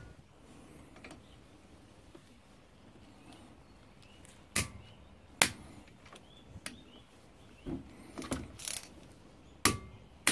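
Sharp metal clicks from a torque wrench and socket tightening the brake caliper guide pin bolts to their torque setting, a handful of single clicks with a quick cluster near the end.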